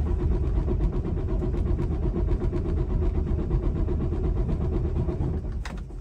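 Detroit Diesel DD15 inline-six diesel in a Freightliner Cascadia cranking on its starter without firing, with a steady rhythmic pulse of compression strokes, heard from inside the cab. The fuel is held off while the automatic compression test gauges each cylinder's compression from the cranking. The cranking stops near the end with a click.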